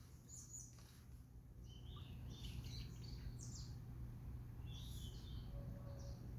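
Scattered short, high bird chirps, a few with quick downward glides, over a steady low rumble of background noise.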